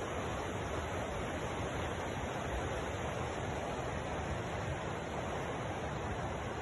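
Mountain river rushing over rocks: a steady, even wash of water noise.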